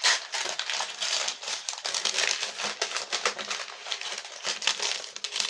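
Packaging crinkling and rustling continuously as a parcel is unwrapped by hand, with many small crackles.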